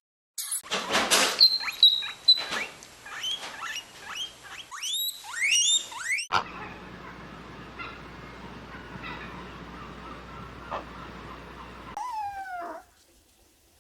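Animal calls: rapid short, rising squeaks and chirps for about six seconds, then a steady hiss with a few faint clicks, and a short falling cry near the end.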